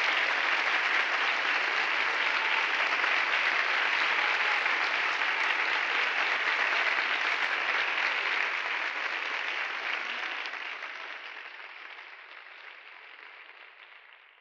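Concert audience applauding steadily, then the applause fades away over the second half.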